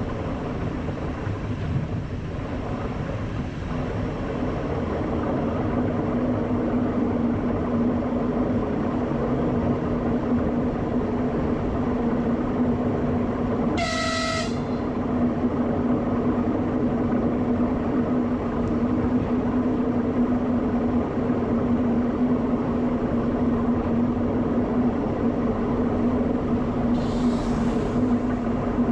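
Running noise of a class 471 electric multiple unit: a steady rumble with a steady hum, growing a little louder over the first several seconds. About halfway through comes one short horn toot lasting about half a second.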